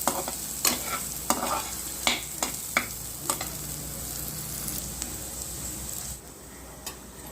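Onions frying in oil in a kadai, a steady sizzle, with a spatula stirring and knocking against the pan in irregular clicks. The sizzle drops in level about six seconds in.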